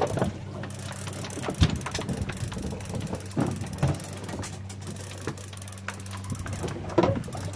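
Fishing reel being cranked to bring in a hooked fish on a bent rod, its gears and ratchet giving a run of quick clicks, over the steady low hum of the boat's engine.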